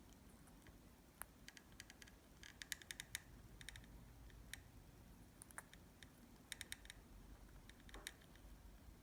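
Faint, quick clicks in short clusters of two to five, coming every second or so: a parrotlet's beak nibbling at strawberry.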